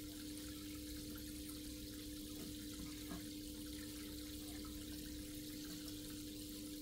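Aquarium filter and water circulation running steadily: a constant low hum with a soft wash of water hiss, and a faint tick about three seconds in.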